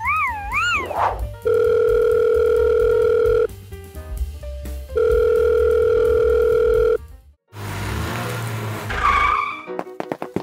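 Telephone ringback tone: two long, steady beeps of about two seconds each with a short pause between, as a phone call rings out. A brief wobbling, warbling sound effect comes just before, and a swishing sound near the end.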